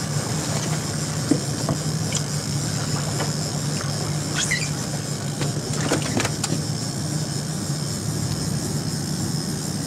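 Outboard motor running steadily at trolling speed, with water splashing along the hull, a few scattered clicks and a couple of short squeaks.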